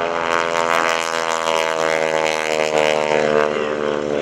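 Boeing-Stearman PT-17 biplane's Pratt & Whitney R-985 nine-cylinder radial engine and propeller running at power on a low pass. The drone falls slightly in pitch as it goes by.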